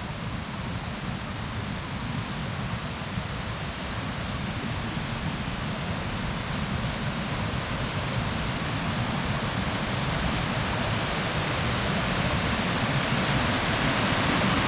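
Rushing water of a waterfall on Portage Brook, a steady hiss that grows gradually louder as the falls come closer.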